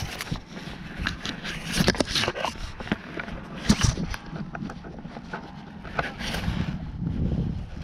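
Rustling, scraping and irregular knocks of a skydiving harness and jumpsuit being moved about close to the microphone after landing, with one sharper knock a little before four seconds in.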